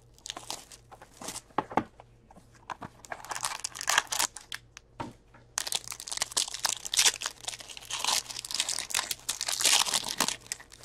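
Hands opening a 2019-20 Upper Deck Ingrain hockey card box: scattered clicks of the cardboard flaps being pulled open, then dense crinkling and tearing from about three seconds in as the foil pack wrapper is torn and peeled off the cards.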